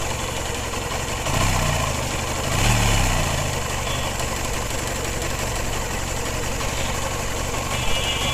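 Motorcycle engine idling, revved briefly twice, about a second in and again near three seconds, each time rising and falling back to a steady idle.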